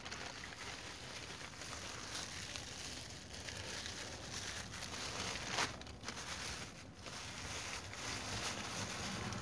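Rustling and crinkling of packaging being handled, with one sharper click a little past halfway.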